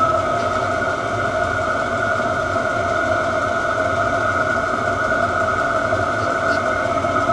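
Chinese diesel parking heater running as it warms up, its blower giving a steady, even whine over a low combustion rumble.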